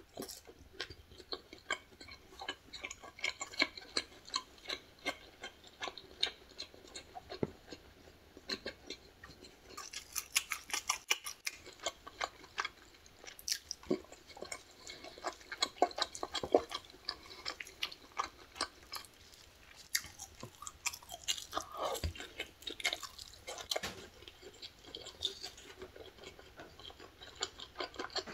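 A person chewing food close to the microphone: many small, irregular wet clicks and smacks, with a few louder bites.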